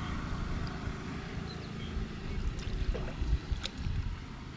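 Water sloshing and splashing as a man wades and works a round wire-mesh basket fish trap (keman) in shallow pond water, with short sharp splashes in the second half. A low wind rumble on the microphone runs underneath.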